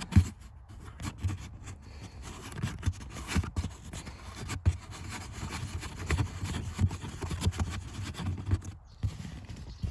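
Irregular knocks, rubs and scrapes of hands and a screwdriver working at the trim panel under the dashboard, undoing its two small screws.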